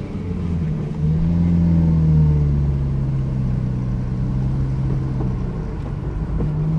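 Car engine and road noise heard inside the moving car's cabin. The engine note rises a little about a second in, then eases back and holds steady.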